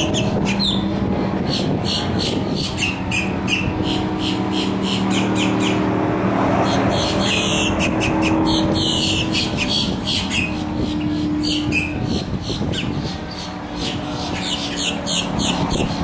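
Boat-tailed grackle calling: a run of dry, high clicks, about two or three a second, with a few short squeaky whistled glides. Under it runs a steady low engine-like hum.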